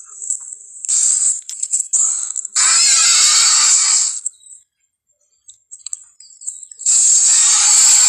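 Movie-style dinosaur roar sound effects: two short cries, then a longer harsh roar, a brief gap of near silence, and another roar starting about seven seconds in.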